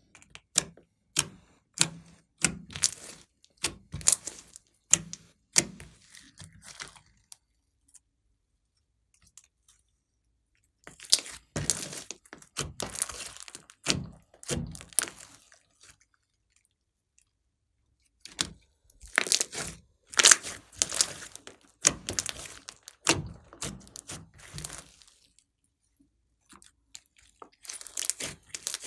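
Hands pressing, squeezing and stretching a large mound of glossy slime mixed with small beads, giving runs of sticky popping and crackling clicks. The crackling comes in several rounds separated by pauses of a few seconds.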